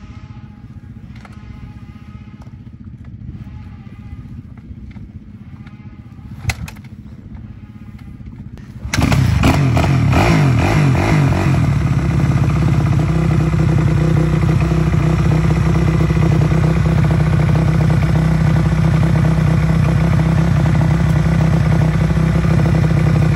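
Motocross dirt bike being kick-started: a low background with a sharp clack about six and a half seconds in, then the engine catches about nine seconds in, wavers briefly and settles into steady running at idle.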